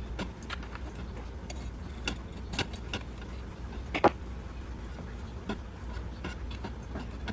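Light metallic clicks and rattles, irregular, from small metal parts being handled, with one louder knock about four seconds in, over a steady low hum.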